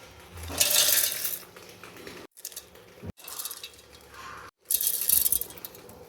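Kitchen clinking and clattering of metal utensils and small hard items, heard in three short bursts, each cut off abruptly.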